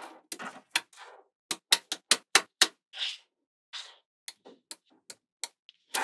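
Small magnetic balls clicking and snapping together as strips of them are fitted onto a larger slab of balls: a quick, irregular run of sharp clicks, with a couple of brief scrapes about halfway through.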